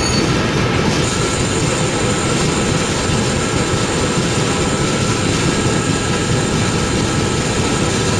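Steady low mechanical rumble of an industrial coil upender running as its ring-geared drum turns a steel coil.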